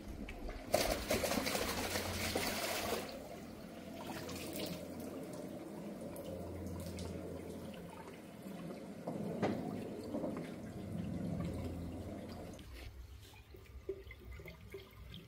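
Pond water splashing for about two seconds as a koi is let out of a landing net into the pond, followed by a steadier sound of running, trickling water that drops away near the end.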